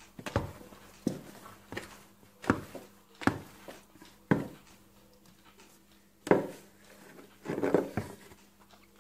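Irregular dull knocks, about eight, as a flower-patterned bowl of risen yeast dough is tipped and knocked against a floured granite countertop to turn the dough out.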